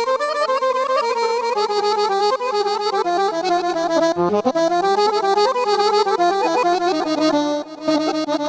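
Korg Pa-series arranger keyboard playing a quick, ornamented folk-style melody in an accordion voice over held lower notes, pausing briefly near the end.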